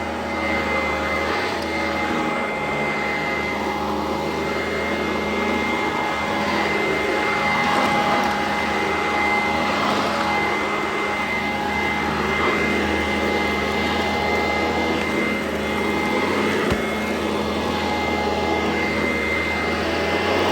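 Sanitaire SC899 upright vacuum cleaner running steadily, with a high motor whine over the rush of air, its sound swelling and easing every couple of seconds.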